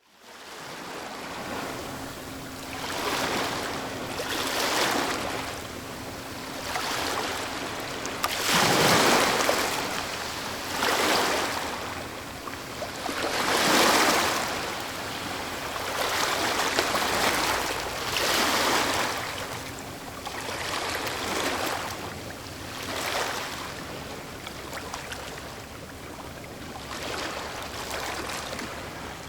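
Sea waves breaking and washing in, one surge after another every few seconds, with two bigger breakers about nine and fourteen seconds in.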